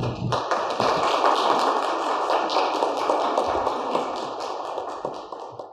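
Congregation applauding, starting a moment in and fading away near the end.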